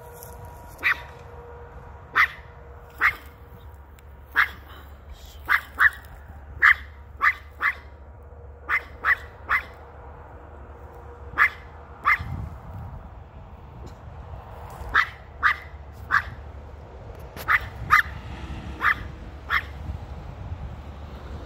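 Small dog barking: about twenty short, sharp, high barks, some single and some in quick runs of two or three, with brief pauses between. She is barking at something a man is holding in his hand.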